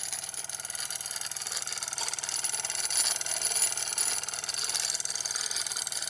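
Bowman M101 live steam engine running on steam: its oscillating cylinder chuffs in a fast, even ticking rhythm over a steady hiss of steam.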